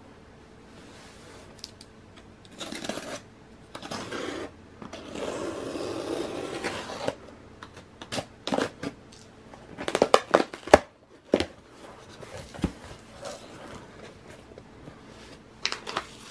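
A cardboard shipping box being opened by hand: packing tape cut and torn off, then the flaps folded back with sharp cardboard clicks and kraft-paper packing and a paper slip rustling.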